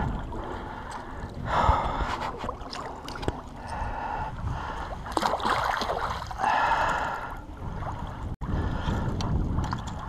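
A fishing reel being swished and dunked in shallow lake water to rinse grit off it, with repeated splashing and sloshing and heavy breathing between.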